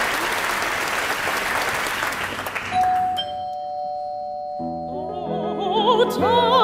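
Applause dies away, then a single ringing note sounds and holds. About two seconds later piano chords come in, and operatic soprano singing with wide vibrato begins.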